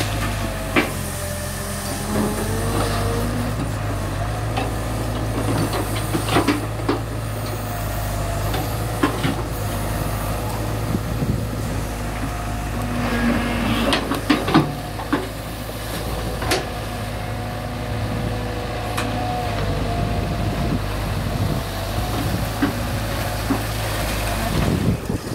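Caterpillar excavator's diesel engine running steadily under load, with a hydraulic whine that rises and falls as the boom and bucket swing. Scattered sharp knocks and splashes come from the steel bucket scooping and dropping wet mud.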